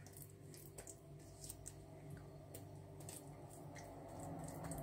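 Faint soft squishing of a hand rubbing oily poppy-seed paste into a rolled-out sheet of dough, with a few light clicks over a low steady hum.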